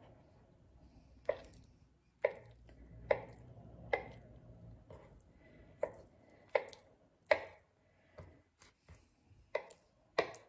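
Kitchen knife slicing hard-boiled eggs on a wooden cutting board: a dozen or so short, sharp knocks of the blade striking the board, irregularly spaced under a second apart.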